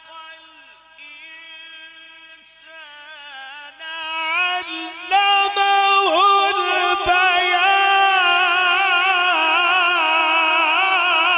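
Male qari reciting the Quran in the drawn-out melodic style, one voice holding long ornamented notes with a wavering pitch. Quieter at first, it swells to a loud high note about four seconds in and holds it.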